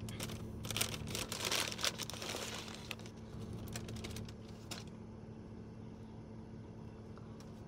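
Paper bakery bag crinkling and rustling as it is torn open and a slice of banana bread is pulled out, most of it in the first three seconds, then a few soft handling clicks. A low steady hum runs underneath.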